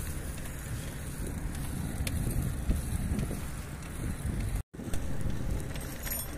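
Wind rumbling on a phone's microphone while moving along a path, with a few faint clicks. The sound cuts out for an instant about two-thirds of the way through.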